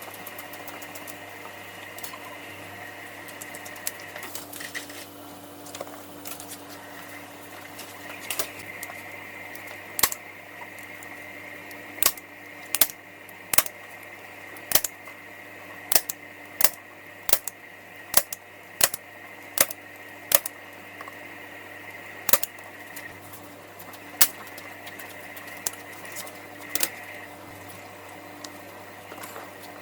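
Staples being driven one after another to fasten vinyl upholstery fabric to an ottoman: a run of sharp snaps, coming about every half to one second through the middle stretch and more spaced out before and after, over a steady hum.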